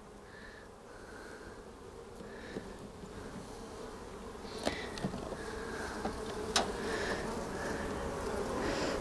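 Honey bees buzzing over an open hive, the buzz swelling gradually as a frame is pried up and lifted out. Two sharp clicks from the hive tool and wooden frame sound partway through.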